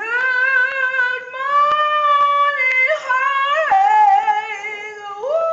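A woman singing solo, unaccompanied, in long sustained notes: one note held for about two and a half seconds, then a rise and fall in pitch, settling on a lower held note near the end.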